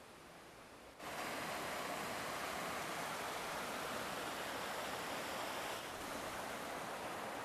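Steady rushing of flowing river water that starts abruptly about a second in, after a faint, quiet moment.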